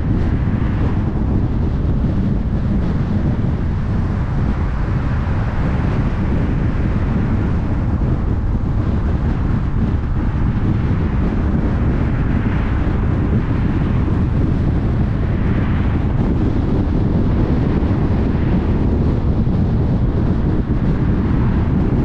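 Car driving along: a steady low rumble of road and wind noise with a lighter hiss that swells gently now and then.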